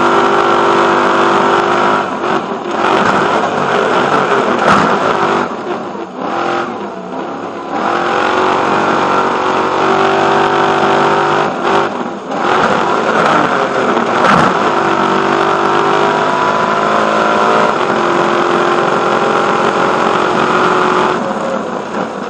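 Stadium Super Truck V8 engine running hard at full throttle, with rushing wind noise over the roof-mounted microphone. The engine drops away briefly for lifts or gear changes about 2.5 s, 6–8 s and 12 s in, then pulls steadily again, and it eases off near the end.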